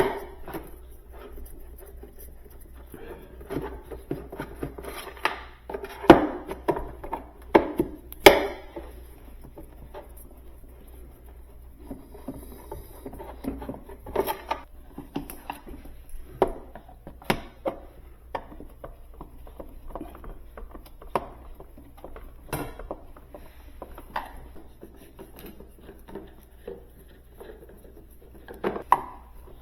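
A screwdriver working on screws deep inside a pressure washer's plastic housing, with scattered clicks, taps and scraping of the tool and parts. The sharpest knocks come about six and eight seconds in.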